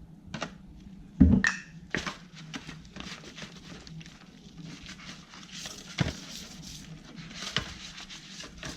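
Scattered clicks and light knocks of things being handled, the loudest about a second in, over a low steady hum.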